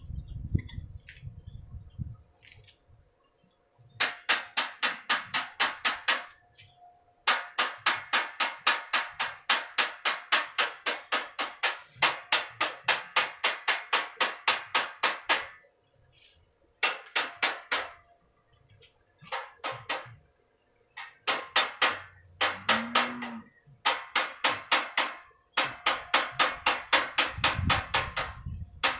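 Fast, evenly spaced striking, about four or five blows a second. It comes in runs of two to eight seconds separated by short pauses.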